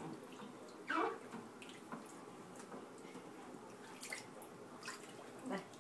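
Water splashing and dripping in a small plastic baby bathtub as hands scoop and pour water over a baby, with a few short splashes. A brief voice sound, falling in pitch, comes about a second in.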